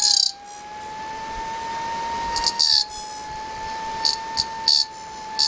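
Homemade mini siren, an old hovercraft motor spinning a chopper against a mismatched 11-hole stator, running at full speed with a steady high-pitched whine. The whine creeps slightly up in pitch and dips briefly about halfway. Short scratching noises come several times, the loudest sounds, about halfway and again in the last second and a half.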